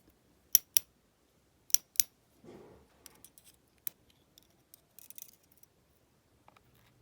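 Small metal lock parts being handled while gutting a padlock: two pairs of sharp snipping clicks, like tweezers or a tool snapping shut, then a soft rustle and scattered lighter ticks.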